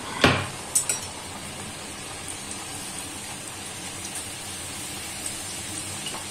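Namakpare dough pieces deep-frying in hot oil in a kadhai, a steady bubbling sizzle. There are two sharp clacks in the first second.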